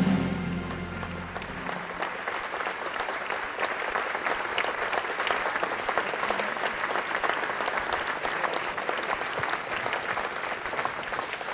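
Concert audience applauding with dense, even clapping, while the music's last held chord dies away in the first two seconds. Heard on a home VHS recording of a TV broadcast.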